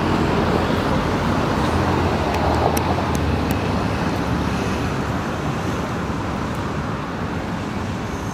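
Steady motor traffic noise with a low engine hum, easing slightly toward the end, with a few faint clicks a little under halfway through.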